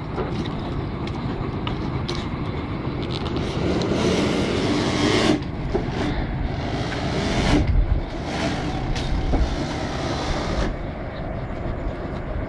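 Truck-mounted water-well drilling rig running hard, its engine and hydraulics going steadily, with scattered metallic knocks. Loud hissing rushes come in three bursts from about four seconds in.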